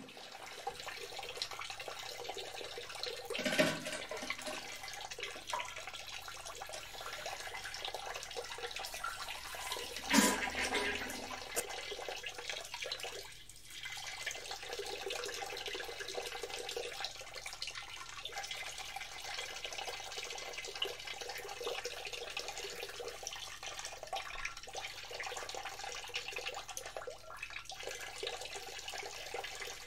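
Water running steadily from a tap into a bathroom sink, with two loud knocks about three and a half seconds and ten seconds in.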